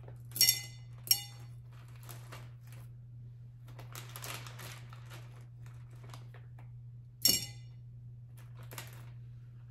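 Small faux pearls dropped into a tall glass vase: three sharp, ringing clinks, two close together near the start and one about seven seconds in, with soft plastic-bag rustling between them.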